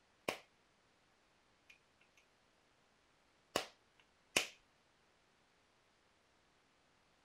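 Knapping percussion on Rainy Buttes stone: three sharp strikes of a percussion tool against the stone, the last two close together, with a few faint clicks of flakes and tool handling between them.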